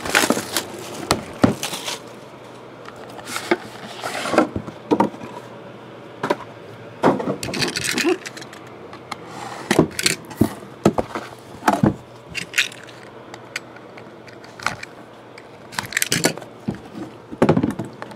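Plastic shrink-wrap crinkling as it is peeled off a cardboard trading-card box, then the box and its lid handled: scattered rustles, scrapes and light knocks.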